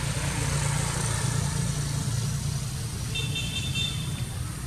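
An engine running steadily with a low hum. A short high-pitched tone sounds about three seconds in.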